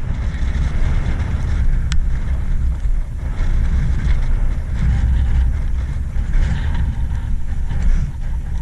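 Dirt bike engine idling with a low, uneven rumble, mixed with wind noise on the microphone.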